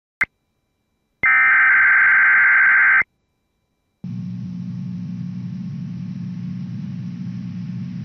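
Emergency Alert System header data burst over a radio stream: a short blip, then a loud buzzy digital screech of nearly two seconds that cuts off abruptly. After a second of silence, a steady low hum follows.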